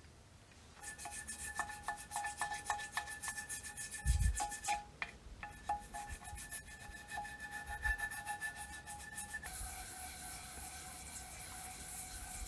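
Quick, repeated scraping strokes of a hand tool on a metal part of the old charcoal iron, the metal ringing with steady tones under the strokes. There is a brief pause with a dull thump about four to five seconds in, and the scraping turns smoother and more even near the end.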